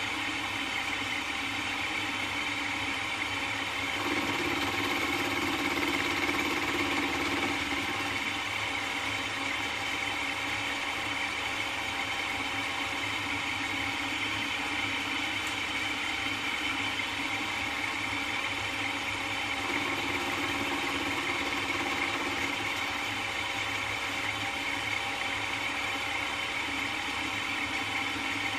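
Milling machine running steadily with an end mill turning in the spindle, machining a square aluminum block held in the vise. The hum grows louder for a few seconds twice, about four seconds in and again around twenty seconds in.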